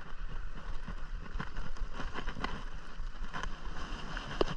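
Spinning reel being cranked to bring in a hooked fish, with scattered irregular clicks and handling knocks over a low wind rumble on the microphone.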